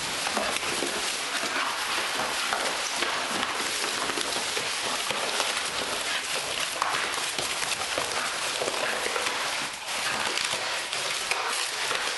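A miniature bull terrier chewing and tearing apart a box: continuous dense crackling and ripping.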